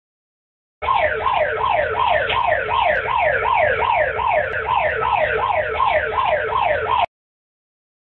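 Peru's emergency alert alarm: a wailing tone that drops in pitch over and over, about two and a half times a second. It starts about a second in and cuts off suddenly about a second before the end.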